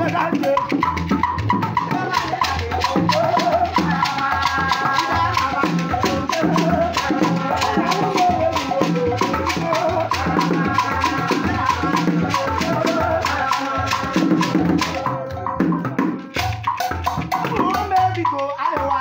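Beaded gourd rattle (shekere) shaken in a quick, steady rhythm along with music that has a pulsing bass beat; the shaking breaks off briefly about fifteen seconds in.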